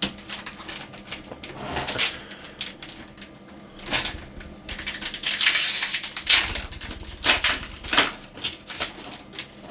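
Foil trading-card booster pack being crinkled and torn open and the cards slid out and handled: quick crackling, rustling and clicking, with a longer burst of crackling about halfway through.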